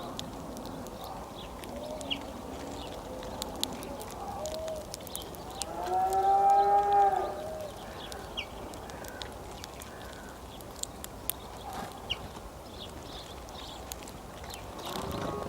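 A drawn-out animal call, lowing like a cow's moo, about a second and a half long, about six seconds in, with a shorter, fainter one near the end. Short high chirps and ticks are scattered throughout.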